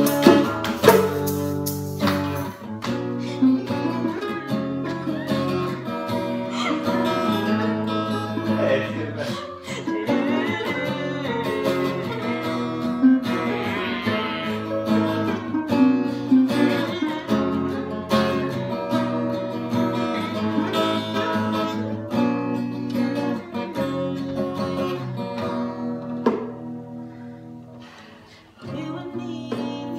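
Acoustic guitar playing an instrumental passage, with bongo hits in the first couple of seconds. The playing fades down near the end, then picks up again.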